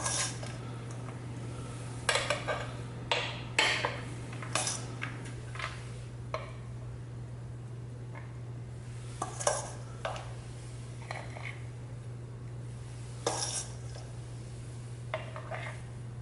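Metal spoon scooping food from a stainless steel mixing bowl and packing it into a metal mini muffin pan: short, irregular scrapes and clinks of metal on metal, over a steady low hum.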